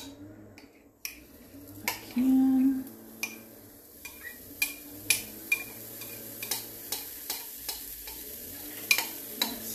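Pancake batter sizzling as it cooks in a frying pan that is probably set a little too hot, with sharp clinks of a utensil against the mixing bowl as the bowl is scraped out. A short steady tone sounds a little after two seconds in.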